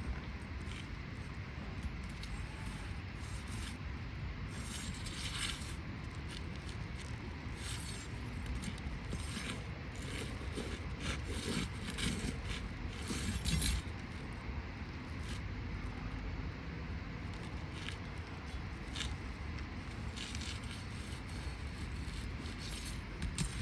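Asphalt roofing shingles and hand tools being handled in a repair: scattered scraping and light clinks, busiest in the middle stretch, over a steady low rumble.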